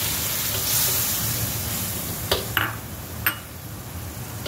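Sauce boiling and sizzling in a wok around diced char siu while a metal spoon stirs it, clinking against the wok a few times a little past the middle.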